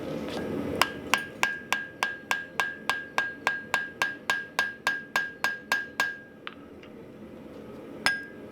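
A light hand hammer striking the hot hammer head on the anvil in a fast, even run of about twenty blows, roughly four a second, each leaving a bright ring that carries between blows; one more blow comes near the end. The blows are forge-welding the loose face back onto the head, with a drift in the eye. A steady rushing noise fills the first second before the blows begin.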